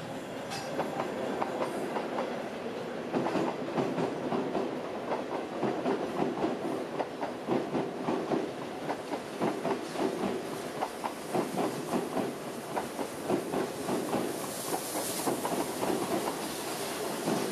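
Oigawa Railway passenger coaches rolling past, steel wheels clicking over the rail joints in a quick, steady clickety-clack. A brief hiss rises over it about fifteen seconds in.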